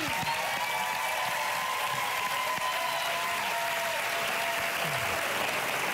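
Studio audience applauding, a steady dense clapping that holds throughout.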